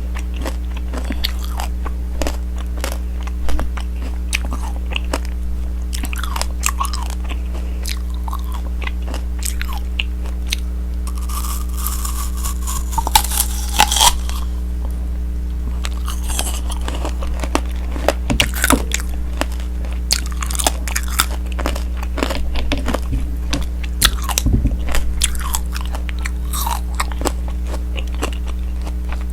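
Tanghulu being bitten and chewed: the hard candied-sugar shell cracks and crunches between the teeth in many sharp, irregular snaps, with wetter chewing in between. A steady low hum runs underneath.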